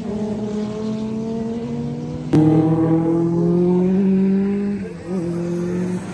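Rallycross race car engines running at high revs as the cars race past on the circuit. A louder engine cuts in abruptly about two seconds in, its note slowly falling, with a brief dip near the end.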